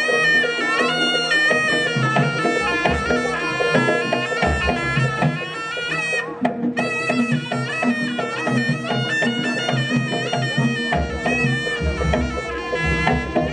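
Live kuda lumping accompaniment: a shrill reed shawm (slompret) plays a bending, wavering melody over drums and gamelan, with the drumming coming and going.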